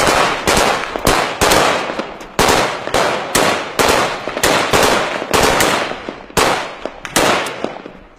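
Kalashnikov-pattern assault rifles firing a long string of single shots, irregularly spaced at roughly two a second, stopping shortly before the end.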